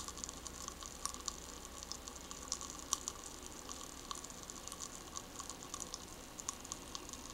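Pop Rocks candy crackling in an open mouth: a steady scatter of tiny irregular pops and snaps.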